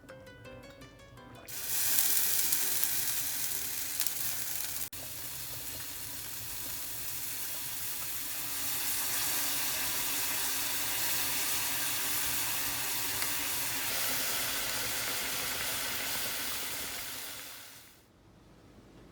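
Food sizzling in a hot cooking vessel: a steady hiss that starts about a second and a half in, breaks off briefly about five seconds in, and fades out near the end.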